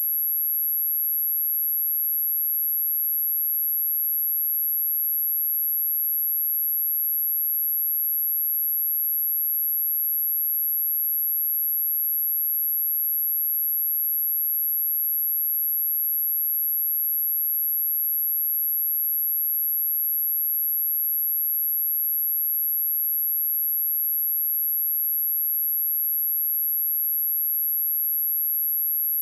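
A steady, high-pitched 11622 Hz sine-wave test tone, one pure unbroken pitch.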